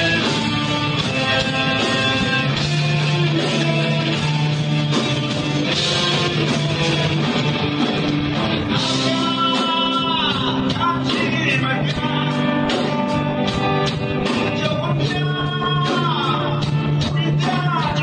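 Rock band playing live, with distorted electric guitar, bass and drums and a singing voice; guitar lines bend up and down in pitch around the middle and near the end.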